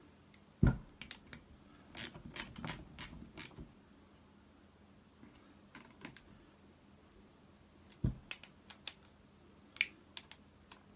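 Hand tool clicking and tapping against a starter motor's metal housing as its body screws are done up: a quick run of sharp clicks about two seconds in and a few more near the end, with heavy knocks about a second in and about eight seconds in as the starter is handled on the bench.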